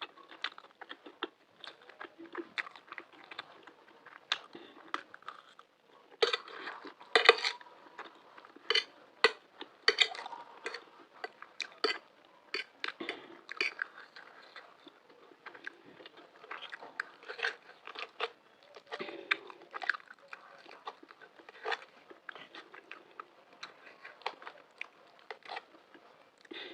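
Close-miked eating sounds: a person chewing mouthfuls of spicy macaroni with green chilies, with frequent wet smacks and clicks of the lips and mouth, irregular and uneven in loudness.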